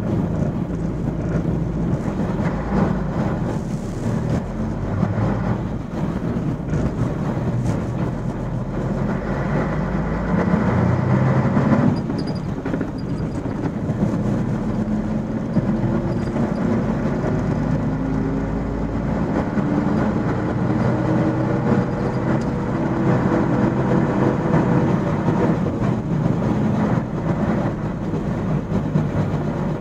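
MAN 16.370 HOCL coach on the move, heard from inside the passenger cabin: a steady low rumble of diesel engine and road noise. In the second half the engine note rises steadily in pitch as the coach gathers speed.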